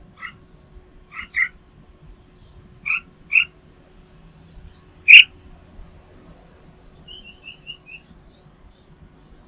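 Small birds calling: short harsh notes, mostly in pairs, with one much louder sharp note about halfway, then a quick run of five short, higher twittering notes near the end.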